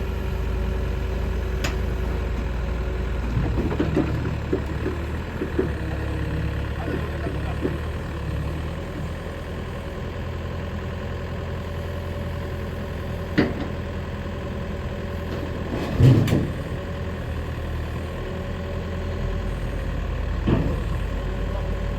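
Sany SY95C excavator's diesel engine idling steadily, with a few sharp knocks, the loudest about sixteen seconds in.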